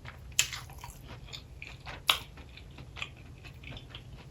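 Close-miked chewing of a fried ball coated in crushed hot Cheetos: a run of crisp crunches, with two sharper, louder bites about half a second and two seconds in.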